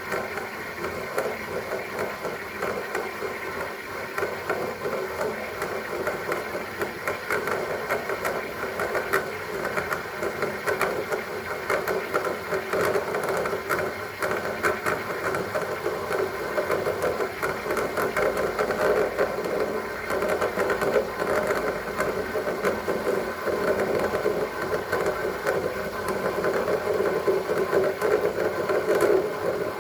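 A steamer running steadily, blowing steam onto an iced-up refrigerator freezer evaporator to defrost it. The noise grows a little louder in the second half.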